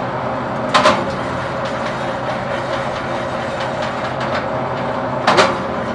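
Electric automatic scrap wire stripper machine running steadily as copper wire is fed through its rollers and blade, with two brief louder noises, one about a second in and one near the end.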